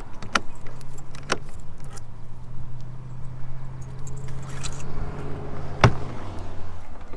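Keys jangling, with a few sharp clicks, over a steady low hum that drops in pitch near the end.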